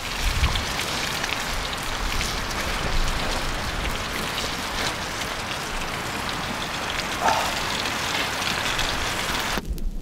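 Beef rib steaks sizzling in a frying pan over a campfire, a steady hiss that the cook takes as the sign of perfectly cooked meat. It cuts off abruptly near the end.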